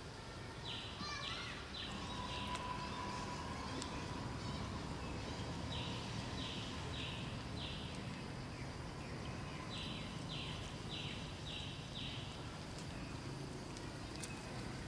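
Forest ambience with a high, raspy animal call repeated in three runs of four or five short notes, each run lasting about two seconds.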